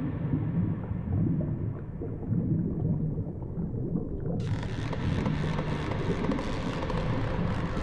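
Dark, dense drone from a post-rock/ambient track: a rumbling wall of noise heavy in the low end. Its high end is gradually muffled, as if a filter were closing, then the full bright sound cuts back in suddenly about four and a half seconds in.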